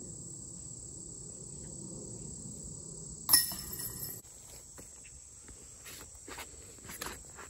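Steady high-pitched chorus of insects buzzing without a break. About three seconds in comes a single sharp clack with a brief ring.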